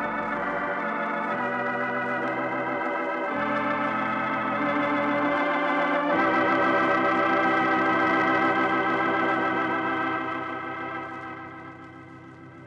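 Organ music: sustained chords changing every second or two, then one long held final chord that fades away near the end, a radio programme's closing theme.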